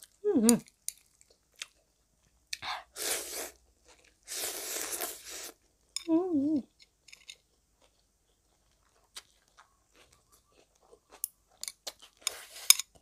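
Tossed noodles slurped up off chopsticks in three long slurps, about 3 s in, about 4.5 s in and near the end, with chewing and small mouth clicks between. A short wavering hum near the start and another about 6 s in.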